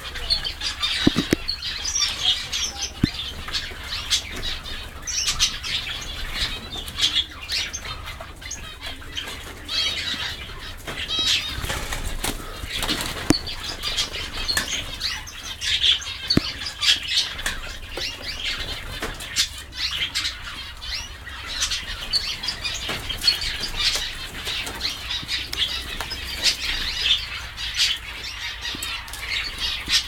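Mixed flock of aviary finches, among them zebra finches and Gouldian finches, chirping and calling continuously in many short overlapping notes, with occasional wing flutters.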